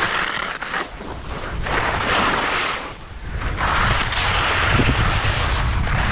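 Skis scraping and skidding on hard-packed snow in surges that swell with each turn, over wind buffeting the camera microphone.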